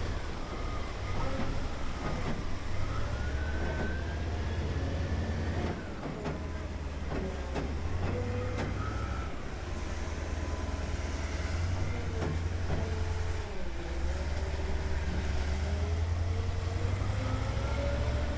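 Heavy engines of M3 amphibious bridging rigs running, a deep steady rumble with a whine that slowly rises and falls as they work, and a few short knocks.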